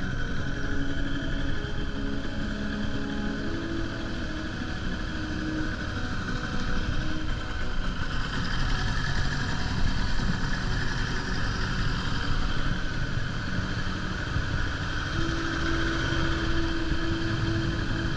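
Small outboard motor running steadily at low speed, pushing an inflatable boat through the water, with the splash and rush of water along the hull.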